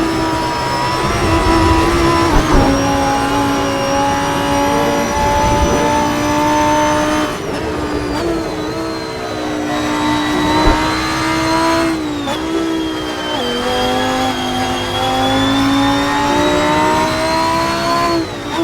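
Lamborghini Huracán Performante's naturally aspirated V10 under hard driving, its note climbing and falling with the revs. The pitch steps several times as the gears change.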